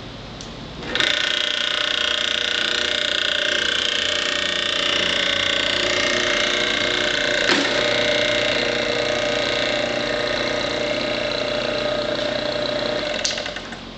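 A small machine's motor starts abruptly about a second in, runs steadily with a whine, and stops shortly before the end.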